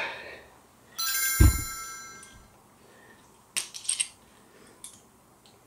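A sharp metallic clink that rings on for about a second, with a dull thump just after it, as metal hand tools are handled. A few quick metal clicks follow a couple of seconds later.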